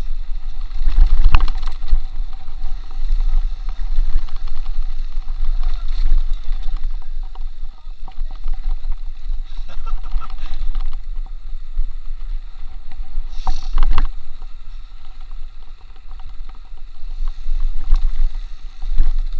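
Mountain bike rolling fast down a rough dirt trail, heard through a chest-mounted action camera: wind buffets the microphone and the tyres and frame rattle over the bumps, with sharp knocks about a second in and again about two-thirds through.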